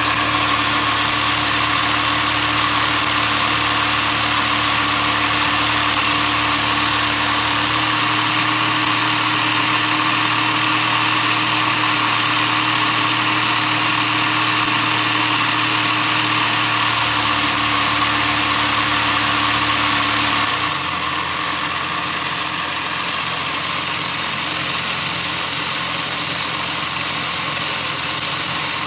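A LEGO electric motor driving a LEGO model engine's crankshaft and 2x2 pistons, running with a steady mechanical hum. Its pitch shifts a couple of times, and about two-thirds of the way through it drops a little in level and tone.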